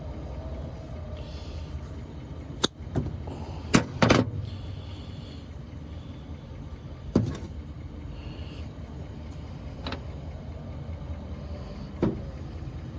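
Heavy cable cutters working on 2/0 battery cable, giving about six sharp clicks and snaps spread over the stretch, the loudest a double snap about four seconds in. A steady low rumble runs underneath.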